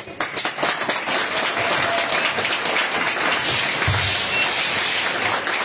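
A crowd applauding, a dense steady patter of many people's handclaps that sets in just after the start.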